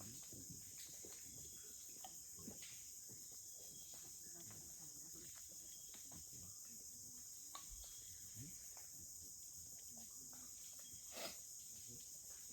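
Faint scattered pops and clicks of mangroves 'breathing', with one louder pop about eleven seconds in, over a steady high hiss.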